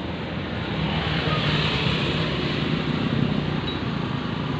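Small engine of a home-built motorized bicycle running, getting louder from about a second in and easing off near the end.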